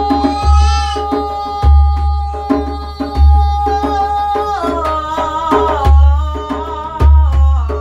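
Singing over djembe: a voice holds one long note for several seconds, then moves through a few lower and higher notes, while the djembe keeps a steady rhythm of sharp slaps and deep bass tones.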